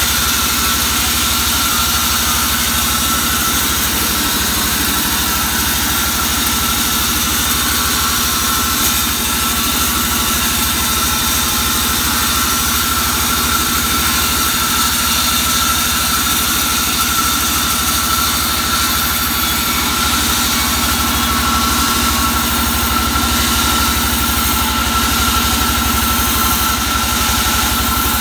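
Band sawmill running steadily without cutting, its drive motor and free-running blade giving a constant hum with a steady high tone over it.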